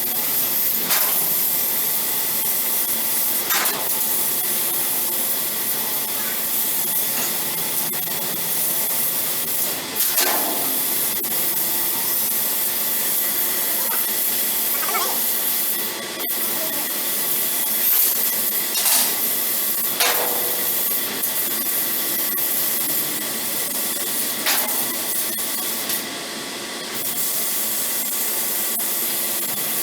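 CNC laser cutting machine running: a steady hiss with a faint steady whine, and a short whine sweeping in pitch every few seconds.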